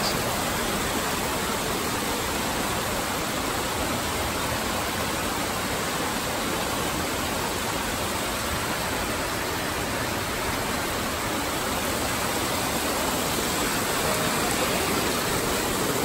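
Steady rush of a small waterfall and the stream cascading over rocks below it.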